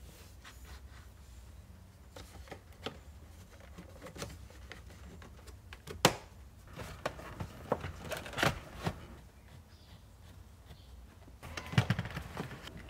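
Plastic dashboard trim panel being handled and pressed into place, giving scattered clicks and knocks of its clips snapping in. There is a sharp snap about six seconds in, then a quick run of clicks around eight seconds, and more near the end.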